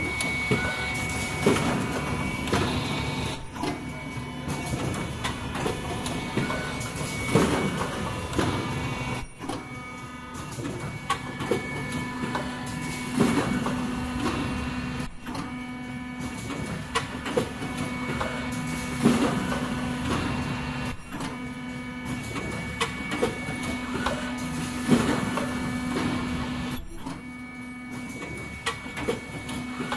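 Automatic cup mask production line running: a steady machine hum, with a loud sharp stroke about every six seconds as the cup-forming press cycles, often followed by a lighter one a couple of seconds later, and softer clatter in between.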